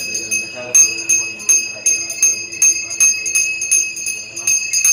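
Brass hand bell (puja ghanta) rung continuously in quick, regular strokes, about three to four a second, its high ringing tone carrying on between strokes.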